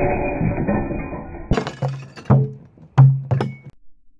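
A ceramic water-cooler crock shattering under a .177 pellet hit, the crash trailing off over about a second and a half. It is followed by five separate sharp hits, several with a low ring.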